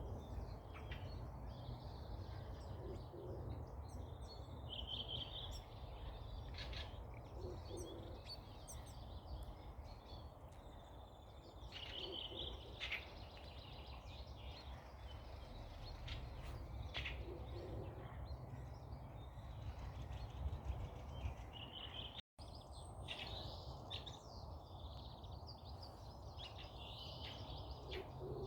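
Woodland birds chirping and trilling in short, high calls, with a low hooting call recurring every few seconds, over a steady low background rumble. The sound drops out briefly about three-quarters of the way through.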